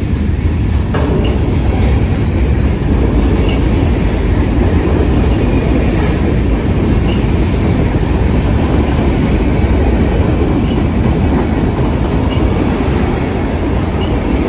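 Freight cars of a CSX mixed freight train rolling past close by: boxcars, covered hoppers and tank cars on steel wheels make a loud, steady rumble on the rails.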